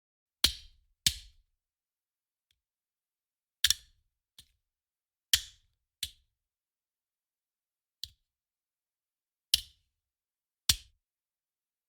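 Gun sound effects: a series of about nine sharp, separate cracks at uneven intervals, each dying away within a fraction of a second, two of them fainter than the rest.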